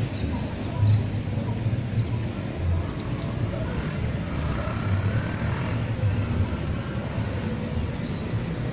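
Outdoor town ambience: distant street traffic with a low, uneven rumble.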